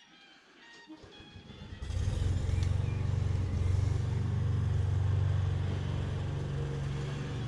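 An engine running steadily. It builds up about a second in and holds a low, even hum from about two seconds on.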